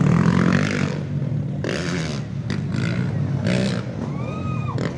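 Motocross dirt bike engine running out on the track, a steady hum under crowd chatter, with a short arching whistle about four seconds in.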